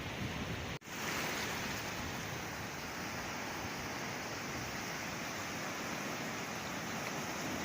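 Sea surf washing in a steady, even rush of noise, with a brief sudden gap just under a second in where the recording is cut.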